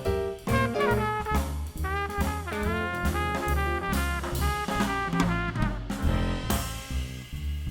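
Live jazz band playing an instrumental break: a horn soloing in quick runs over walking bass and drum kit, with a cymbal wash near the end.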